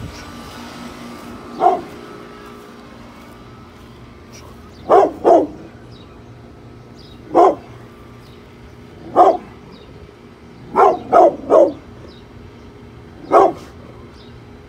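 Pit bull barking in short guard barks: about nine barks, some single and some in quick pairs or threes, a second or two apart. This is territorial warning barking at people working outside the property.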